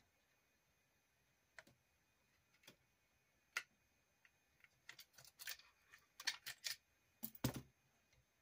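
Scattered small clicks and taps of a screwdriver and small parts against an RC car's metal chassis plate, a few lone ticks at first, then bunching into a quick run of clicks in the last few seconds.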